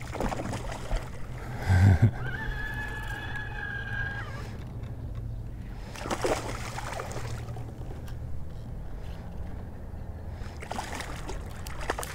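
A hooked bass splashing at the surface as it is fought, in short bursts a few seconds apart, over a low steady hum. About two seconds in there is a loud thump, then a steady whine for about two seconds.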